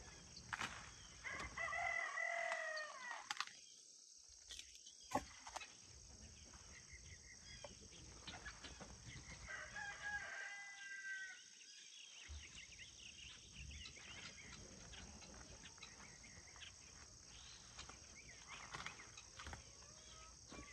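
A rooster crowing twice, once about a second in and again around nine seconds in, over a steady high drone of insects, with a few scattered clicks.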